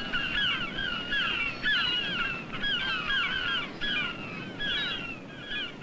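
Flute playing a high, wavering melody of short sliding phrases, repeated over and over.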